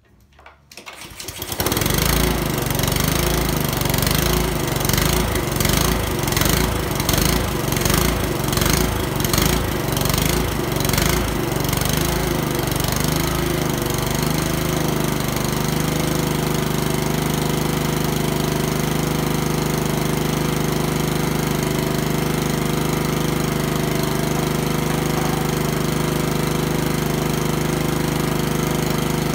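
Honda walk-behind lawn mower's four-stroke engine starting about a second in and running. It runs unevenly for roughly the first twelve seconds, then settles into a steady run; it starts right up after its carburetor has been cleaned twice.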